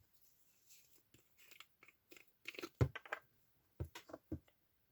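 Irregular wet squishing and crinkling clicks from handling a lump of torn toilet paper mixed with glue, as more glue is worked in.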